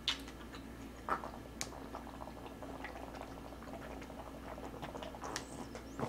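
A person drinking straight from a paper carton, with liquid sloshing and faint swallowing and a few sharp mouth or carton clicks in the first two seconds.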